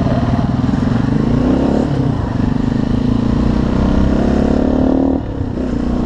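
Viar Cross X 200 motorcycle's single-cylinder engine pulling away and accelerating. Its pitch climbs and drops back about two seconds in and again near the end, as at each upshift.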